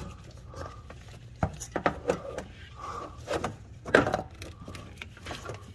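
Scattered light clicks and knocks of a fuel hose and its fittings being handled by hand, with a few sharp taps about a second and a half in and again near four seconds.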